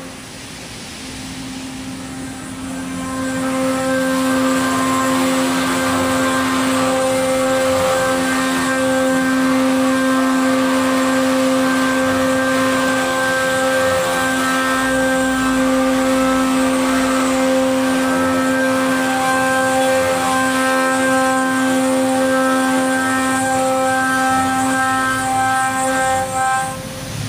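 CNC milling machine's spindle running with its cutter milling a metal plate: a steady whine of several tones over the rasp of the cut. It grows louder about three seconds in and falls away near the end.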